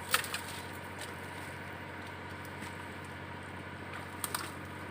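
A few sharp knocks over a steady low hum: a loud one just after the start, a lighter one right after it, and two quick ones near the end.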